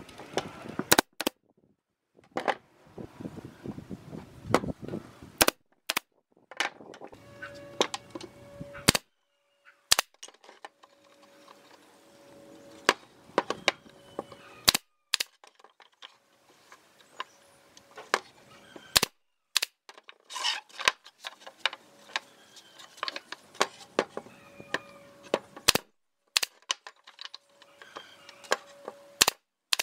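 Brad nailer firing repeatedly, driving brads into wooden slats: sharp single shots at irregular intervals, a second or two apart.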